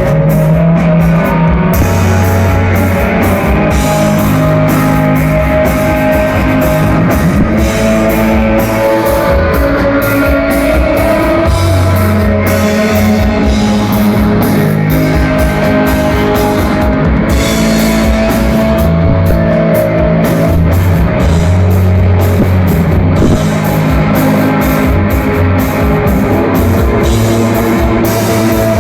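Live rock band playing loud and steady: a driving drum kit with bass and guitar.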